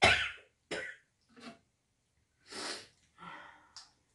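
An elderly woman sneezes loudly into her hand, then gives several shorter, softer breathy bursts over the next few seconds.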